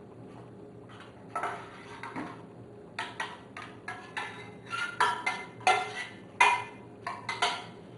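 A metal spoon scraping and clinking against a small stainless-steel saucepan as melted butter is scraped out into the mixing bowl: a quick, uneven run of sharp clinks and scrapes starting about three seconds in. Before it come a couple of soft scrapes of a spatula stirring flour in a glass bowl.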